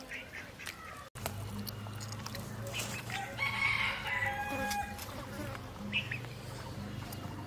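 A rooster crows once, a call of about a second and a half, over a low steady hum.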